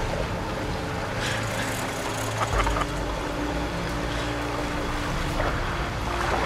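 Sportfishing boat's engine running steadily under way, a low rumble that steps up about two and a half seconds in.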